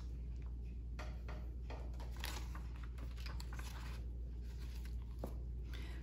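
Pages of a paperback children's book being handled and turned, a run of soft, irregular rustles and scrapes that stops near the end, over a steady low hum.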